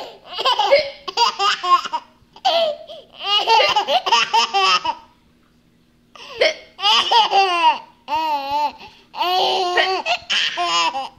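A young child laughing hard in repeated high-pitched fits, with a pause of about a second midway.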